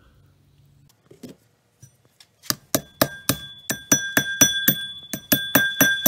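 A hammer pounding rocks in a metal pot to crush them into iron ore: quick, even blows about four a second that begin about two and a half seconds in, each leaving the pot ringing.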